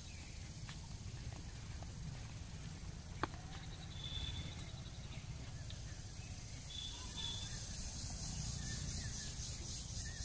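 Quiet outdoor ambience: a steady low rumble with a few faint, brief bird chirps and a couple of soft clicks, the sharpest about three seconds in.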